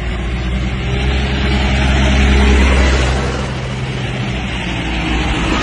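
A heavy vehicle engine running with a steady low drone, swelling to its loudest about two and a half seconds in and then easing off.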